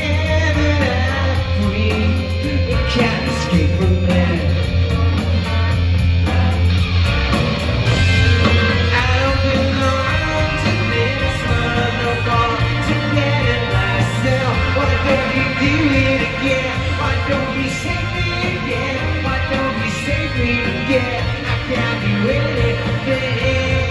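Live rock band playing a song: electric guitars, drum kit and keyboards with a lead vocal, heard from the crowd in a large, echoing hall.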